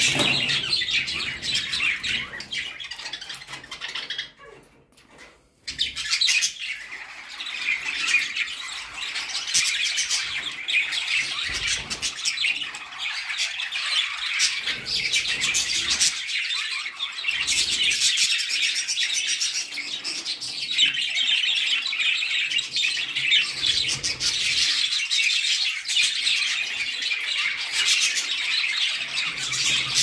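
A flock of budgerigars chattering and chirping, a dense, fast twitter of many birds at once. It drops away for about a second, around four seconds in, then resumes.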